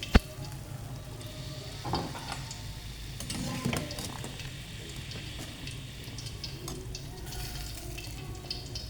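Food frying in a pan with a steady sizzle and light stirring, with scattered small ticks. A sharp click comes right at the start and duller utensil knocks about 2 and 3.5 seconds in.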